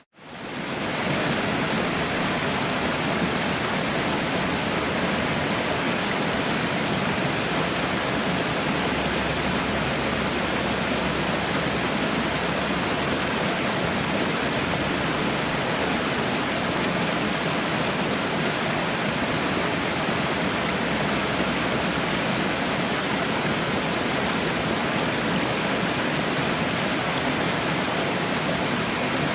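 Waterfall: a steady, even rush of falling water. It drops out for an instant at the very start and fades back in over about a second.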